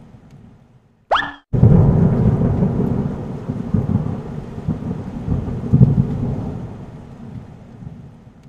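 Sound effect for a logo animation: a quick rising sweep about a second in, then a deep rumble that starts suddenly and slowly fades away.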